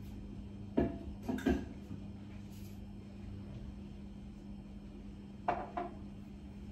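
Kitchen clatter: a few short knocks and clinks of dishes or cupboard doors, a couple about a second in and two more near the end, over a steady low hum.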